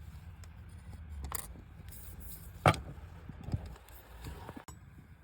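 Small tools and phone parts being handled during a smartphone screen repair: faint clicks and rattles, with one sharp click a little past halfway.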